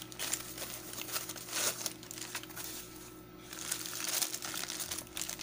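Plastic packaging crinkling and rustling in the hands as it is unwrapped, in irregular bursts that grow busier in the second half.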